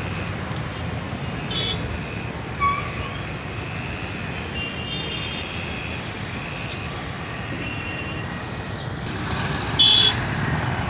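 Street traffic: a steady rumble of passing motor vehicles, with a few short high beeps and one louder horn toot near the end.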